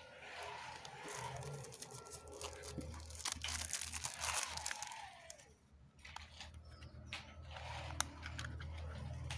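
Clear plastic wrapper crinkling and tearing as a small remote control is pulled out of it by hand, with scattered sharp clicks of handling. The crackle is loudest in the middle, eases briefly, then carries on in scattered crinkles.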